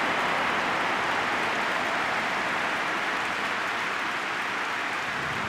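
Football stadium crowd noise, a steady dense wash of thousands of voices, slowly dying down after a shot goes wide.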